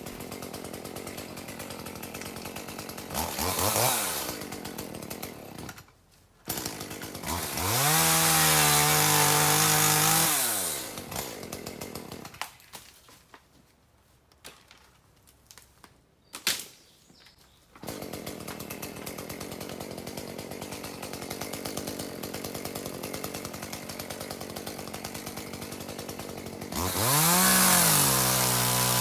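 Chainsaw engine idling, then revved to full throttle for about three seconds, pitch rising and falling back, as it cuts bamboo. It goes quiet for several seconds in the middle, then idles again and revs up once more near the end.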